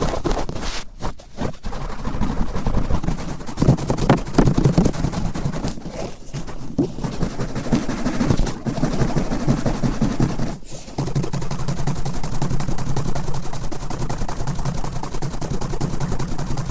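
Cotton swab scrubbing firmly around an ear close to the microphone: a dense, rapid crackling and scratching, with a few brief pauses.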